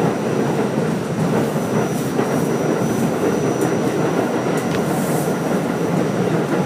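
An R44 subway car running along the track, heard from inside: a steady rumble of wheels and running gear, with a few clicks over the rails and a thin, steady high whine.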